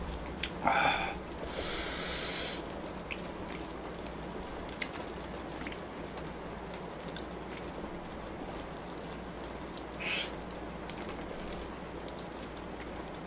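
A person slurping and eating instant ramen noodles, in short noisy bursts about a second in, around two seconds and again near ten seconds, with faint small clicks between.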